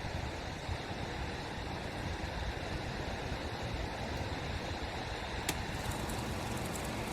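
Steady rushing of shallow water flowing over a riffle, with wind buffeting the microphone. A single faint click about five and a half seconds in.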